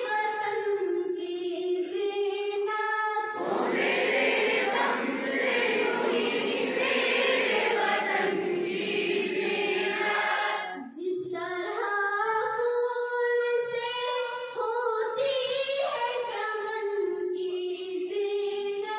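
A group of schoolgirls singing together slowly, with long held notes. The singing grows fuller from about three seconds in, dips briefly about halfway through, then goes on with fewer voices.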